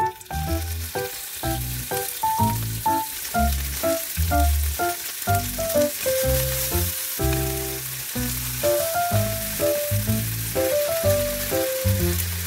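Food sizzling steadily in a hot frying pan, starting abruptly, under background music with a steady beat.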